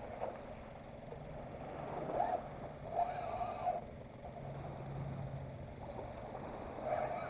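Spinning reel whirring in short spells as a hooked redfish is played on a bent rod.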